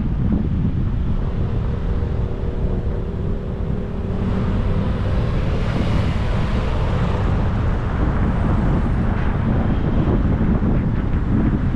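Road and wind noise from a car driving along: a steady low rumble with wind buffeting the microphone. A louder rushing hiss swells about four seconds in and fades again after about eight seconds.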